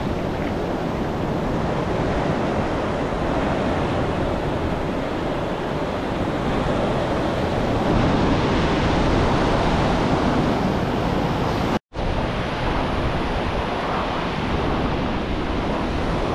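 Shallow ocean surf washing and foaming up the beach, with wind rumbling on the microphone. The sound cuts out for an instant about twelve seconds in.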